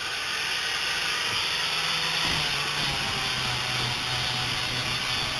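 Angle grinder with a flap disc running steadily as it sands the epoxy-and-fiberglass seam inside a plywood boat hull, a loud hiss over the motor's hum. The motor's tone drops a little about two seconds in.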